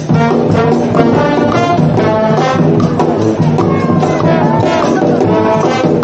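Brass band playing a lively tune, several horns together, with one sliding note about two-thirds of the way through.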